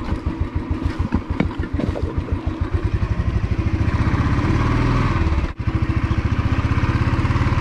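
Motorcycle engine running under way, a steady train of firing pulses that speeds up and grows louder from about three seconds in as the bike accelerates. The sound breaks off for an instant just past the middle.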